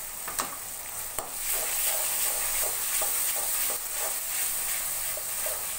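Onions, garlic and tomato sauce sizzling in hot oil in a metal kadai, stirred with a slotted steel spoon that scrapes and clicks against the pan, with two sharper clicks in the first second and a half.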